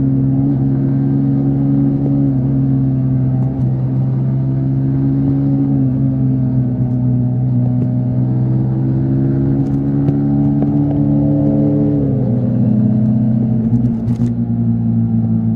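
Yamaha MT-15 V3's single-cylinder engine and exhaust running steadily at highway cruising speed. The engine note holds an even pitch and dips slightly a few times as the throttle eases.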